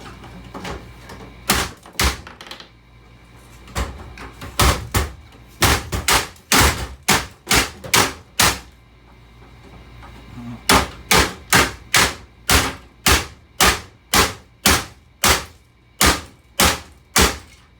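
A hammer repeatedly striking a stereo system: two blows, then a quick run of blows about two or three a second, a short pause, and another steady run of blows about two a second.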